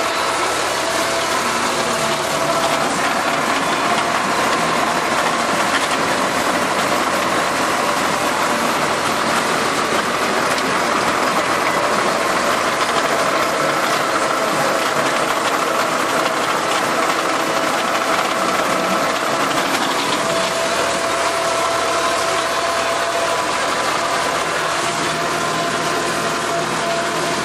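Farm tractor's engine running steadily while working a rotary tiller through the soil, heard from the cab as an even drone with a constant whine.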